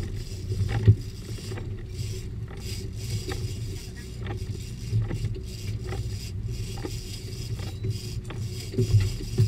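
Boat engine running steadily with a low hum, with scattered clicks and two louder knocks, one about a second in and one near the end.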